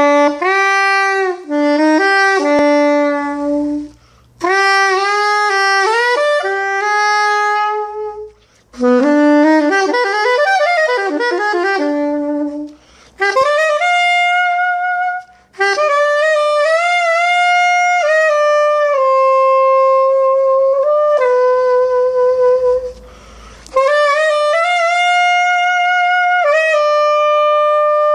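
Ripamonti special series soprano saxophone in rose copper played solo: melodic phrases of single notes separated by short breaths, with a quick run of notes near the middle and long held notes in the later phrases.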